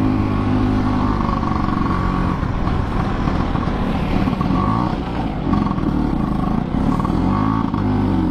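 Two-stroke Vespa scooter engine running under load in third gear with a passenger aboard, its pitch rising and falling several times as the throttle opens and closes.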